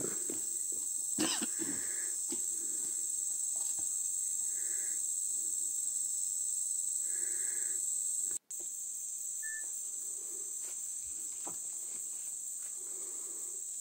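Steady high-pitched drone of rainforest insects, with faint soft steps along a dirt track; the sound cuts out for an instant about two-thirds of the way through.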